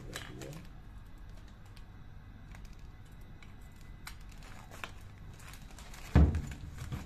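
Light clicks of metal mechanical seal parts being handled and fitted together, then a single heavy thump about six seconds in as the parts knock together or against the metal sheet.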